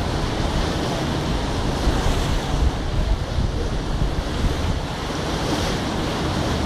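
Wind buffeting the microphone on the deck of a moving river boat: a steady, loud rushing with heavy, uneven low rumble.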